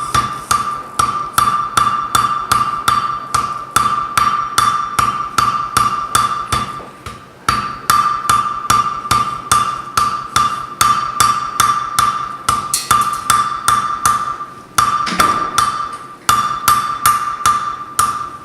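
Blacksmith's hammer forging iron on an anvil in a steady rhythm of about three blows a second, each blow ringing. The hammering pauses briefly about seven seconds in and again about fifteen seconds in. The work is blending a transition in the bar so that no unworked stock shows.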